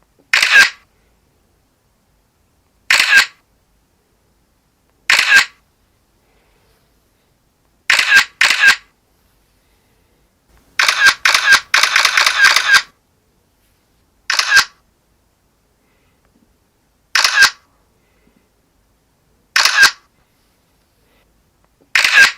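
Camera shutter clicking: single shots every two to three seconds with silence between, a quick double shot, and a run of rapid-fire shutter clicks near the middle.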